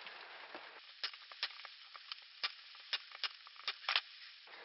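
Brad nailer being used on a small glued wooden piece: a run of about nine sharp clicks and clacks at irregular intervals over about three seconds.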